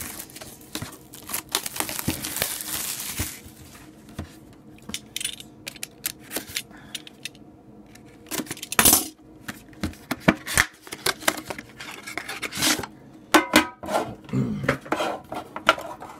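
A utility knife slits a cardboard box and its wrapping, with rustling and scraping over the first few seconds. Then come scattered clicks, knocks and light metallic clinks as the metal card tin inside is handled and pulled out.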